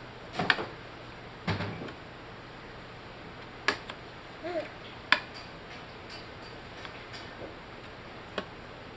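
Household light switches on a toy switch box being flipped by hand: about half a dozen sharp plastic clicks, irregularly spaced, with a couple of duller clattering knocks in the first two seconds.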